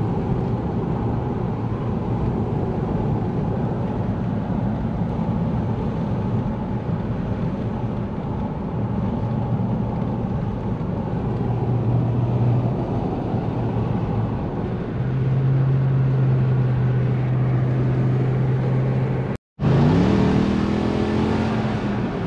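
Toyota Celsior's 1UZ-FE V8 engine and road noise while the car drives at a steady pace. The sound cuts out briefly about 19 seconds in, then the engine revs rise as the car accelerates near the end.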